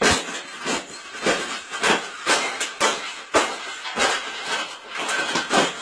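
Repeated crackling crunches, about two a second, as a cage is bent and folded over on itself.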